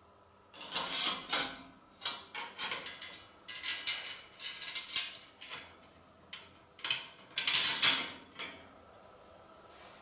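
Metal rack stays clinking, rattling and scraping against a bicycle fork and front axle as a front rack is fitted by hand, in irregular bursts of sharp clicks, with a brief metallic ring near the end.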